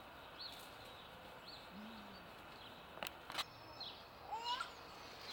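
Outdoor background hiss with faint short bird chirps repeating about once a second. Two sharp clicks come about three seconds in, and a rising call follows near the end.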